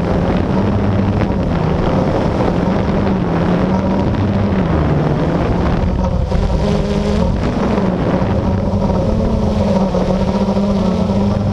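Blade 350QX quadcopter's four brushless motors and propellers humming steadily, heard from the camera mounted on it, the pitch wavering up and down as the motors change speed, with wind buffeting the microphone.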